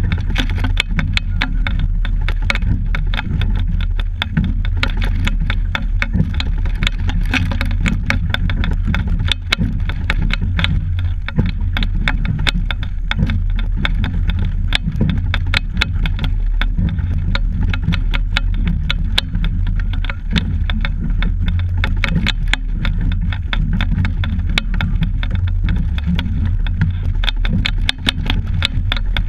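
Steady low rumble with dense, irregular rattling and clicking, picked up by a camera mounted on a double scull while it is rowed across the water.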